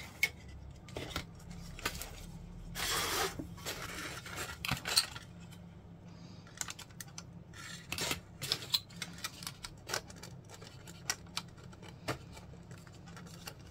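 Plastic model-kit parts of a Tamiya 1/48 F-35A clicking and scraping together as they are handled and test-fitted, in scattered small clicks with a longer scrape about three seconds in.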